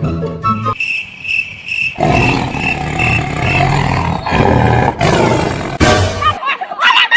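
Recorded lion roar sound effect played loud for several seconds, ending in a sharp burst about six seconds in.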